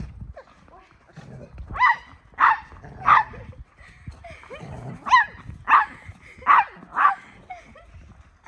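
Dog barking in short, high-pitched play barks: three quick barks about two seconds in, a pause, then four more.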